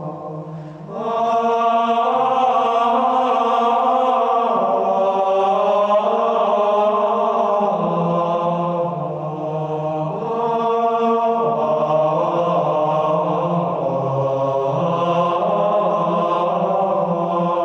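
Slow chanted choral music: voices holding long notes in chords that shift every second or two, starting about a second in and tapering off near the end.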